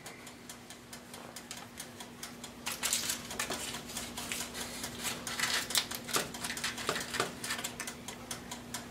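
A plastic spatula scraping and tapping against a foil-lined baking pan, with the foil crinkling, as a run of small clicks and rustles that thickens about two and a half seconds in. A steady low hum runs underneath.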